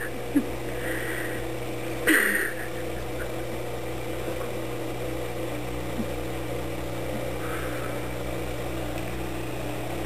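Dishwasher running with a steady hum. A brief louder noise cuts in about two seconds in.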